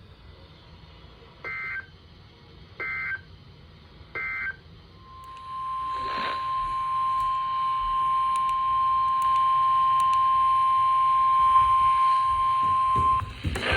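Emergency Alert System / NOAA Weather Radio signalling. Three short warbling two-tone SAME data bursts, the end-of-message code closing the previous alert, then about five seconds in a steady single-tone weather radio alarm held for about eight seconds before the next warning.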